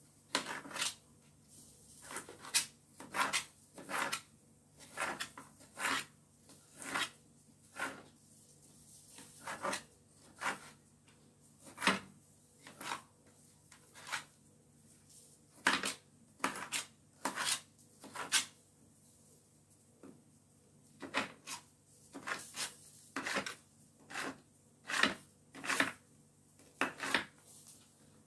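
Kitchen knife cutting through an onion onto a tray: sharp, irregular chopping cuts, mostly one or two a second, with short pauses between runs.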